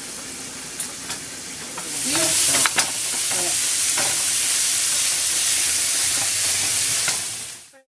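Food sizzling as it fries in a hot pan: a steady hiss that grows louder about two seconds in, with a few sharp clicks, then cuts off suddenly near the end.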